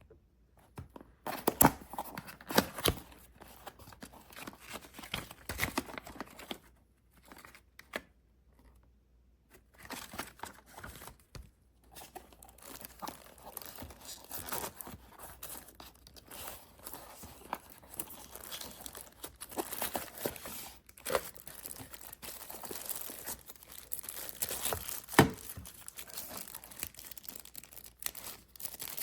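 Paper or label stock being handled close up: irregular crinkling and tearing with scattered sharp clicks and taps, pausing twice in the first twelve seconds.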